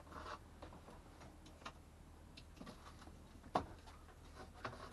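Faint scattered clicks and taps of hands working on plastic trim and cables in a camper-van cab ceiling, with one sharper knock about three and a half seconds in.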